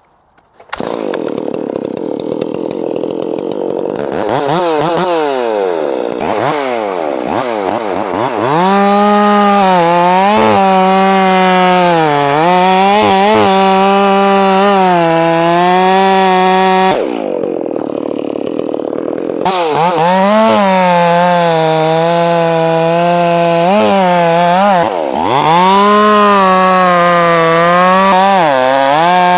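Chainsaw revving up, then held at high speed and cutting into wood, its pitch dipping again and again as the chain bites. About two-thirds of the way through it drops briefly before speeding up again.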